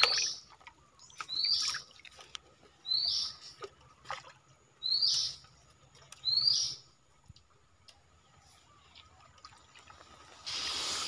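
A bird gives a short rising call five times, about every one and a half seconds. Near the end, water splashes and pours as the bamboo lift net is raised out of the stream.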